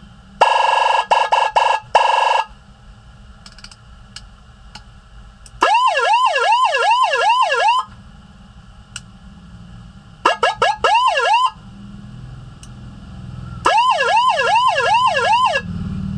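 Electronic six-tone siren module sounding its tones in short bursts with pauses between: first a rapid buzzy warble, then several bursts of a fast, repeating swooping yelp, about three sweeps a second.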